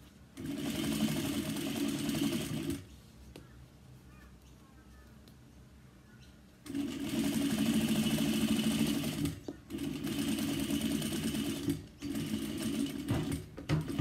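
Sewing machine stitching a quarter-inch seam along a fabric strap, running in bursts: a run of about two seconds, a pause of about four seconds, then longer runs broken by brief stops, ending in short spurts.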